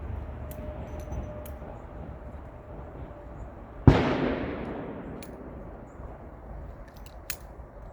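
A single revolver shot about four seconds in, sharp and loud, with an echoing tail that dies away over about a second and a half; the load is heavy 310-grain bullets. A few faint clicks come before and after it.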